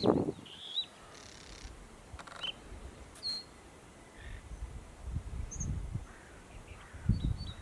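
Male bluethroat giving scattered short, high notes in a pause between song phrases, with gusts of wind rumbling on the microphone.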